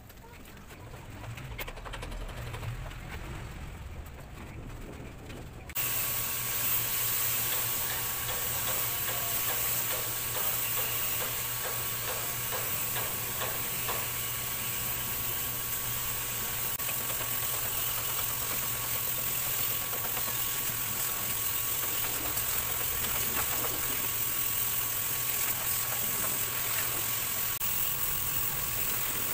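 Water spraying from a garden-hose nozzle onto a soaped engine bay, rinsing it off: a steady hiss with a faint even tone underneath, which starts abruptly about six seconds in.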